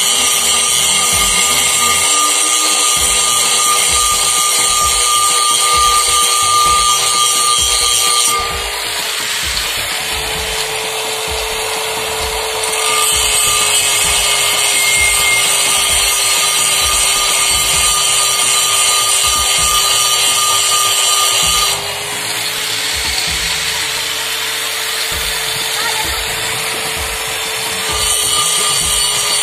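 Handheld electric angle grinder running against the inside of a Mahindra Bolero pickup's brake drum, a steady motor whine with metal grinding. About eight seconds in, and again about twenty-two seconds in, the sound turns duller and slightly quieter for several seconds before the sharper grinding returns.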